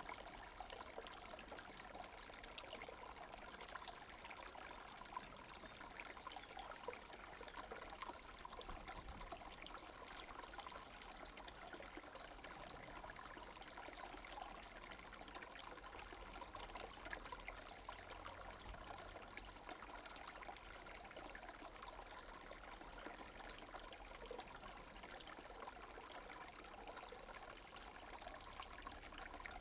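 Small half-frozen stream running and trickling over a little step between ice and a fallen log, a steady quiet rush of water with many small splashes.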